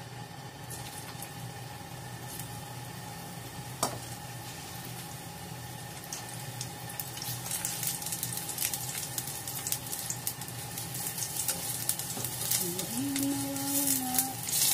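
Food pieces sizzling in hot oil in a nonstick frying pan. The crackling builds and grows louder over the second half. There is a single sharp click about four seconds in.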